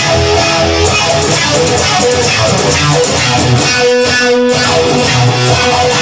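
Music: an electric guitar playing over a low bass line.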